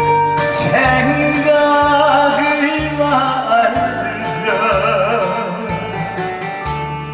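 A man singing with vibrato into a microphone over a karaoke backing track with a steady beat.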